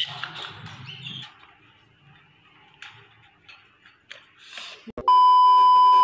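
Faint rustles and clicks as a wire birdcage is handled, then near the end a loud, steady electronic beep lasting about a second, the tone of a censor bleep edited over the soundtrack.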